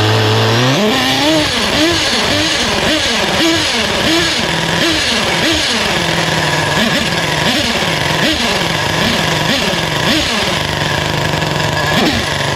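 Force 32 nitro engine of a Losi 8ight 1/8-scale truggy being warmed up. The throttle is blipped about once a second, and the pitch rises and falls back to a steady idle between blips.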